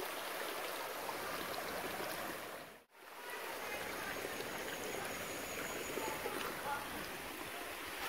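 Shallow stream running over rocks, a steady rush of water that cuts out for a moment about three seconds in.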